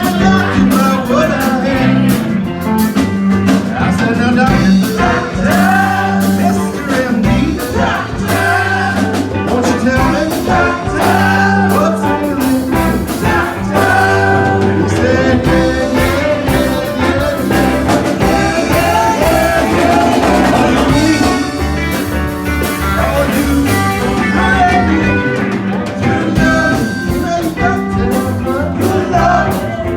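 A band playing an up-tempo rock-and-roll song with a singer, guitar and a steady bass line.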